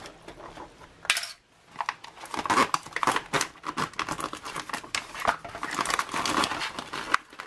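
Crinkling and rustling of a freeze-dried meal pouch as it is handled with a plastic spoon and folded shut, with scattered light clicks.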